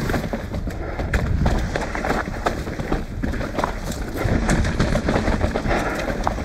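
Mountain bike rolling fast down a dirt and rock singletrack: a steady rush of wind and tyre noise with irregular clicks and knocks as the bike rattles over stones and roots.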